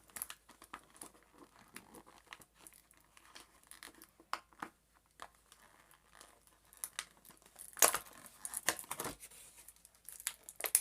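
Toy packaging being handled and unwrapped: irregular crackles and rustles, loudest about eight seconds in and again near the end.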